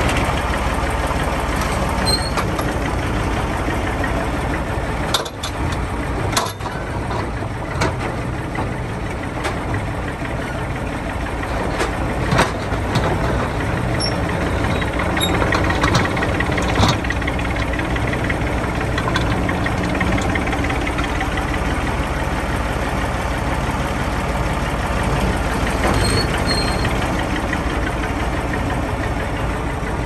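Ruston-Bucyrus 10-RB cable-operated face shovel working, its engine running steadily under load. Sharp metallic clanks come through now and then as it digs.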